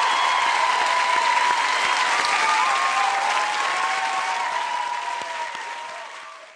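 Large arena crowd applauding, a dense steady clapping with a few held tones running through it, fading out over the last two seconds.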